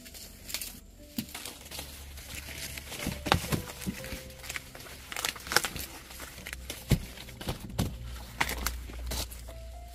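Dry corn stalks, leaves and husks crackling and crumpling, with irregular sharp snaps scattered through.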